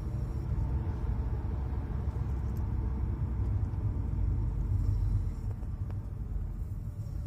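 Low rumble in the cabin of a Citroën C4 Grand Picasso, swelling slightly about two thirds of the way through. This is the strange noise the owner hears coming from the steering wheel.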